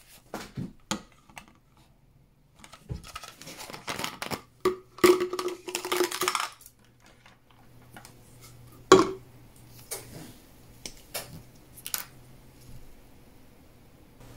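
Small plastic parts handled on a hard workbench: sharp clicks and taps, a stretch of scraping and rasping about three to six seconds in, and one louder click about nine seconds in, as a plastic syringe, vial and screw cap are picked up, fitted and set down.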